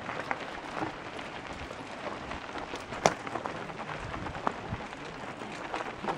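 Mountain bike tyres crunching and crackling over loose gravel and stones as riders roll past, with a sharper click about three seconds in.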